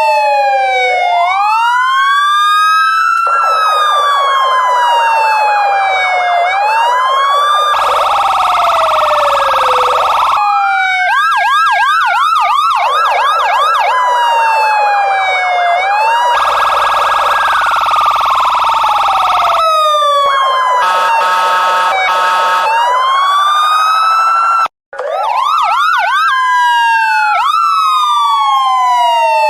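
Loud electronic police car sirens switching between a slow rising-and-falling wail, a fast yelp and a harsh buzzing horn-like tone, at times several overlapping. The sound cuts out for an instant about 25 seconds in, then the wail starts again.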